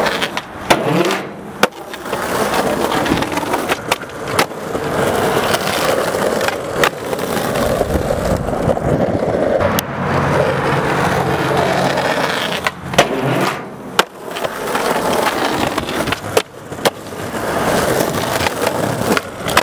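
Skateboard wheels rolling over rough asphalt, broken by about a dozen sharp clacks of the board hitting the ground.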